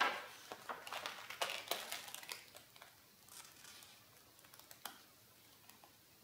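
Sketchbook paper rustling and crinkling as a page is turned by hand: a quick run of crackles over the first two and a half seconds, then a couple of lighter rustles as the pages are smoothed down.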